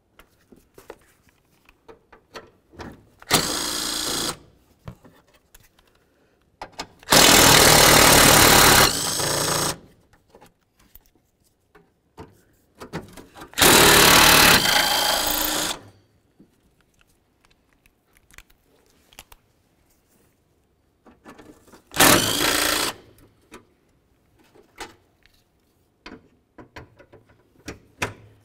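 A cordless power tool with a 10mm socket spinning out the bolts of a steel mounting plate in four whirring bursts of one to two and a half seconds. The second and third bursts are the loudest. Light metal clicks and clinks come between the bursts.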